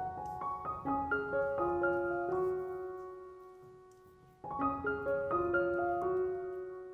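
Background piano music: a gentle melody of single notes and chords that ring and fade away, with a new phrase starting about four and a half seconds in.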